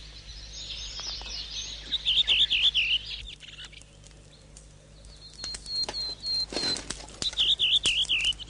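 Forest birds singing: one bird repeats a quick phrase of high swooping notes about two seconds in and again near the end, and between them a run of short, falling whistles. Brief rustles and snaps from the undergrowth are scattered through it.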